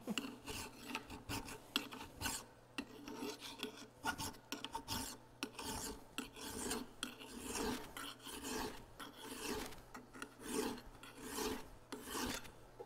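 Flat hand file being stroked across the rim of a driveshaft yoke to clean it up, a steady run of uneven rasping strokes, roughly one to two a second.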